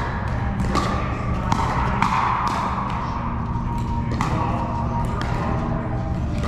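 Pickleball paddles striking a plastic ball in a rally: sharp pops roughly a second apart, over background music and a low steady hum.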